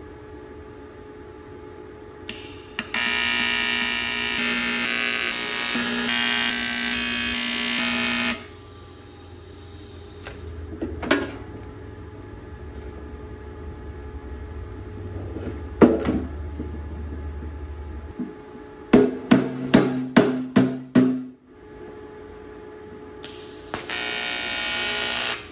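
TIG welding arc on aluminium sheet: the arc runs steadily for about six seconds, then strikes six times in quick succession for short tacks about two-thirds of the way in, and runs again for a couple of seconds near the end. Two single knocks fall in between.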